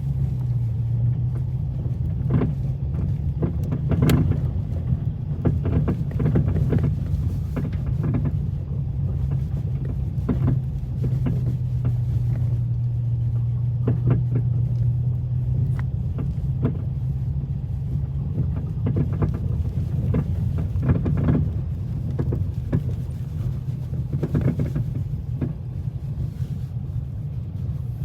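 Dodge Challenger driving with a steady low drone of engine and road noise, broken by repeated, irregular clunks from the sway bar end links, a sign that their nuts have worked loose.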